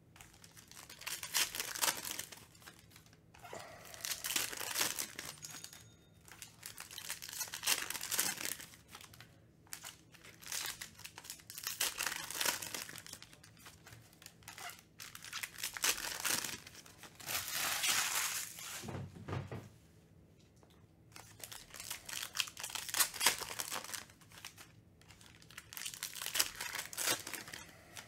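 Foil trading-card packs being torn open and crinkled by hand, in repeated bursts every couple of seconds, with a dull knock about two-thirds of the way through.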